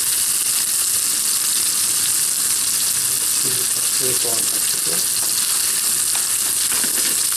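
Rump steaks frying in oil in a hot pan, a steady sizzle as they sear.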